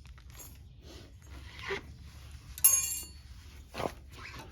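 Metal brake pad clip being worked on the caliper bracket: a few soft knocks and scrapes, and one sharp, ringing metallic clink a little past halfway.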